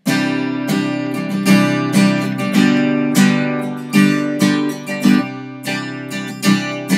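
Acoustic guitar strummed in rhythm, a chord progression played as a demonstration, with a new strum about every half second to second and the chords ringing between strums.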